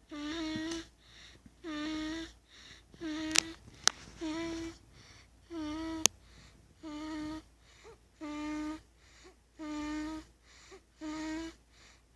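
Rhythmic high-pitched snoring, a short steady note on each breath, repeating roughly every second and a half. A few sharp clicks come about a third and halfway through.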